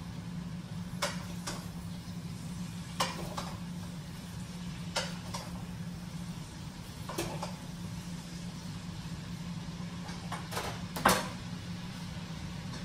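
Pots, pans and utensils knocking and clinking as food is handled at the stove, about eight scattered knocks with the loudest near the end, over a steady low hum.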